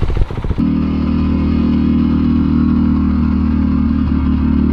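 A 2017 Honda CRF450R's single-cylinder four-stroke engine running at a steady speed, heard close up from a camera mounted on the bike. For the first half-second there is the fast, even pulsing of an idling dirt-bike engine.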